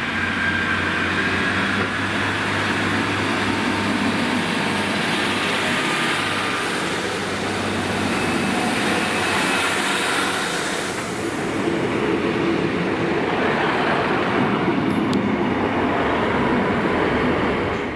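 Transport for Wales diesel multiple unit, including Class 153 unit 153 382, running past along the platform: diesel engine and wheels on the rails, with a thin high squeal over the first few seconds.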